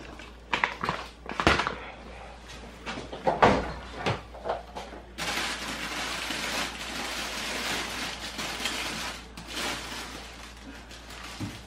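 Handling noises: a few light knocks, then from about five seconds in several seconds of steady rustling, like packaging being handled, which fades away near the end.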